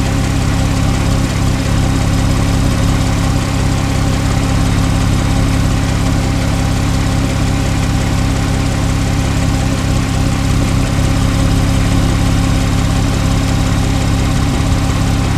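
Porsche 991.1 Carrera 4's flat-six engine idling steadily through its sports exhaust.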